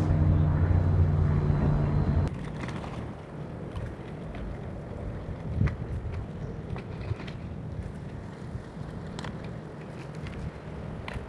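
A low, steady hum that cuts off abruptly about two seconds in, followed by wind rumbling on the microphone with a few faint clicks and knocks.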